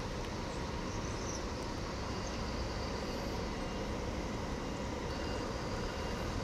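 An intercity coach's diesel engine running steadily as the bus drives slowly away across the station yard.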